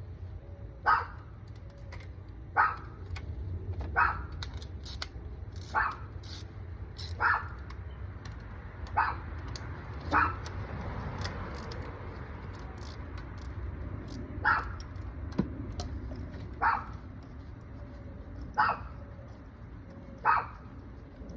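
A dog barking repeatedly, one bark every second or two, with a pause of about four seconds in the middle, over a low steady rumble.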